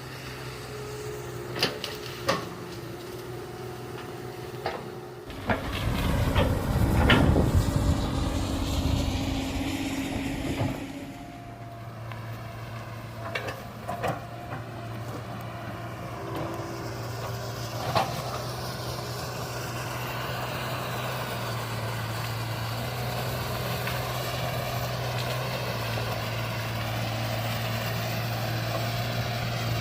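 Komatsu hydraulic excavator running, its engine a steady hum, with scattered knocks and clanks. About five seconds in it gets louder, rumbling under load for several seconds, then settles back to a steady run.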